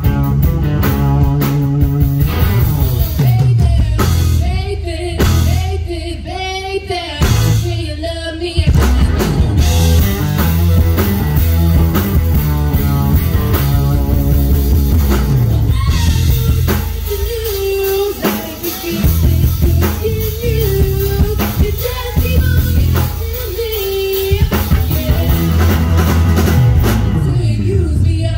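Live blues-rock band playing: electric guitar over drums and bass, with sung vocal phrases and long held notes with vibrato.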